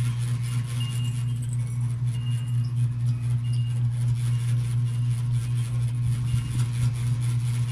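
Steady low electric hum from a running electric fan's motor, with faint short high chirps every second or so and a few soft low thumps near the end.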